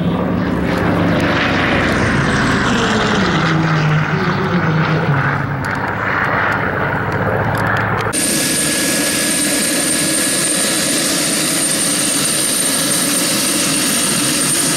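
Vought F4U Corsair's Pratt & Whitney R-2800 radial engine running through a flyby, its pitch sliding down as it passes. About eight seconds in it cuts abruptly to a Pilatus single-engine turboprop running with a steady high-pitched turbine whine.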